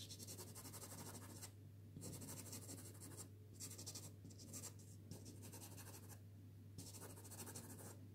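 Soft pastel stick scratching over blue pastel card, faint, in about five runs of rapid short strokes, each about a second long, with short pauses between. A steady low hum underneath.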